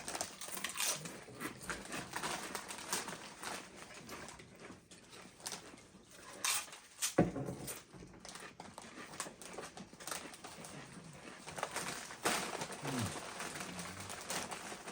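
Crunching and chewing of Doritos tortilla chips, with short crisp crackles throughout. About seven seconds in comes a loud low belch, and another low belch, falling in pitch, comes near the end.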